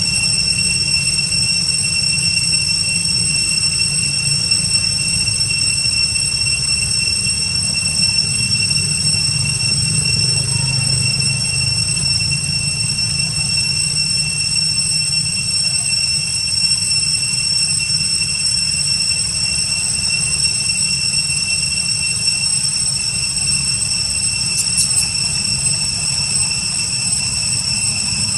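A steady high-pitched whine that holds one pitch with overtones and does not change, over a low rumble. Two faint ticks come near the end.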